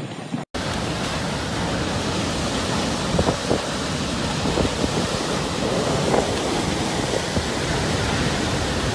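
Cyclone wind and heavy rain making a steady, dense noise, broken by a moment of silence about half a second in.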